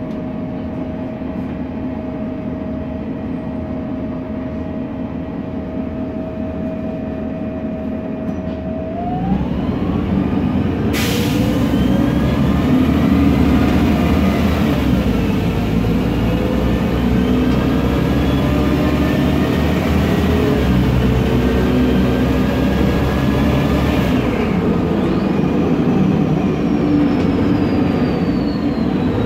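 MAN Lion's Classic city bus with a MAN E2876 CNG engine and Voith DIWA automatic gearbox, heard from inside: idling with a steady tone, then about nine seconds in it pulls away and the engine note and the Voith transmission whine rise together. A loud hiss joins shortly after and stops about two-thirds of the way through, where the whine drops and climbs again as the gearbox shifts up.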